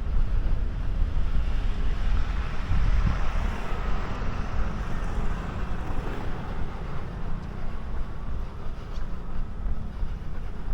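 Wind buffeting the microphone of a camera carried on a run, a gusty low rumble throughout, with the rush of a passing vehicle swelling and fading about three to six seconds in.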